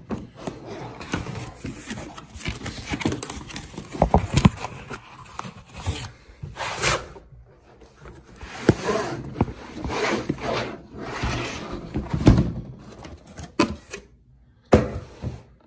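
Cardboard box being pulled open by hand and a blow-molded plastic socket case slid out and handled: rustling, scraping cardboard with scattered knocks and clicks.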